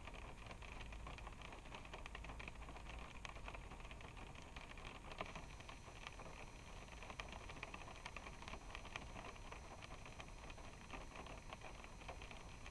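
Rain falling on a car, heard from inside the car through a dashcam's microphone: a dense, steady patter of drops, faint.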